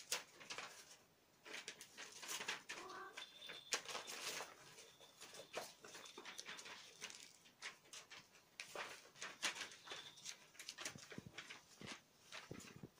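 Faint, irregular rustling and scratching of cats' paws and claws on a floor sheet as a long-haired mother cat and her kittens wrestle and scamper, with scattered small clicks and scuffs.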